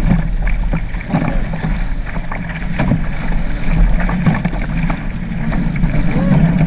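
Wind buffeting the microphone over water rushing past a small sailboat under way in a stiff breeze, with scattered knocks.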